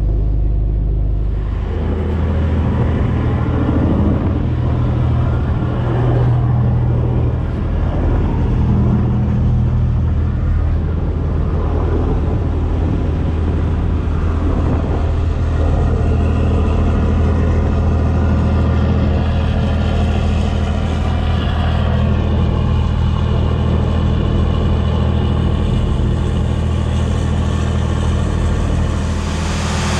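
Tug's Caterpillar marine diesel running steadily under way, a deep even drone, over the rush of wind and water along the hull.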